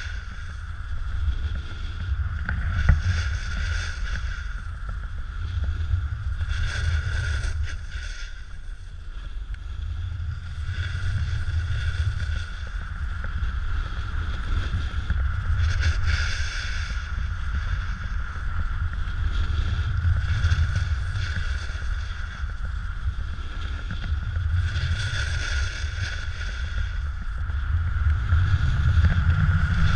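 Snowboard sliding and scraping over snow, the hiss swelling every four to five seconds with each turn, under heavy wind rumble on the camera microphone.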